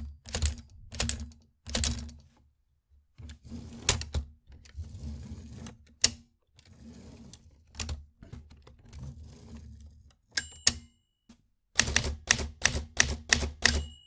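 Typewriter keys striking in uneven bursts, with softer drawn-out mechanical noise between strikes in the middle and a quick run of keystrokes at the end. The margin bell dings twice, a little over ten seconds in and again at the very end.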